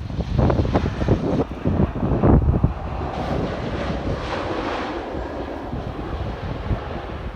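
Turbofan engines of a BA Cityflyer Embraer E-Jet airliner on landing, a steady jet roar that broadens with extra hiss from about three seconds in. Wind buffets the microphone with heavy gusts in the first few seconds.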